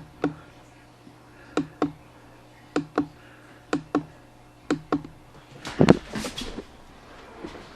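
Sharp clicks in pairs, about one pair a second, then a louder cluster of knocks and rustling about six seconds in.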